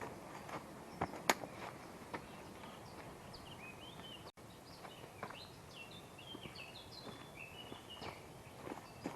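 A bird singing in quick stepped phrases over a steady outdoor hiss, with a few sharp knocks or clicks scattered through, the loudest about a second in.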